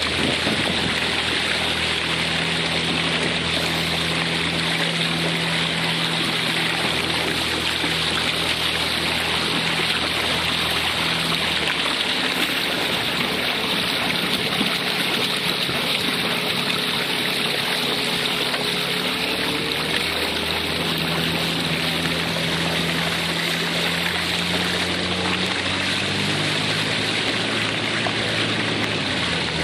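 Small boat's motor running under way, with a steady rush of water and wind past the boat; the motor's pitch shifts a little about twelve seconds in and again around twenty seconds in.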